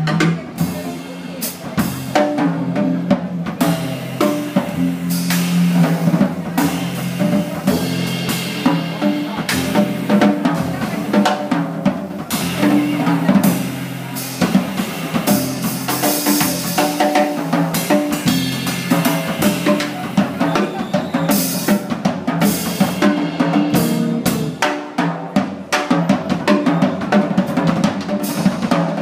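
Jazz drum kit (Gretsch) played busily with snare, bass drum, rim shots and cymbals, the drums to the fore as in a drum solo, with an acoustic double bass sounding low notes underneath.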